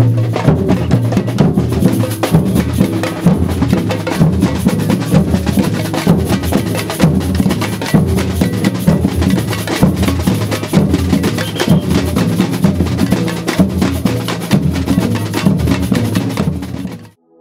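Samba batucada group playing surdo bass drums with mallets in a steady driving rhythm, sharp higher strikes over the deep beats. The drumming cuts off suddenly near the end.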